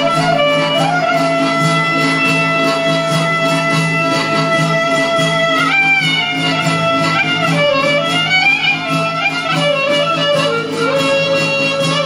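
Albanian traditional folk music from a small live ensemble of violin, clarinet, accordion, long-necked lutes and frame drum. A lead melody moves in long held notes that step and waver between pitches, over a steady low drone and an even beat.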